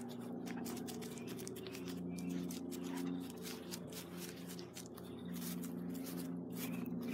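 Background music of sustained low chords that change every second or so, with faint bird chirps and light rustling ticks over it.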